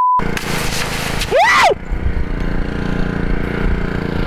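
A test-card beep ends just after the start. A loud hiss with a quick rising-and-falling swoop follows, then a gas pressure washer's engine settles into running steadily.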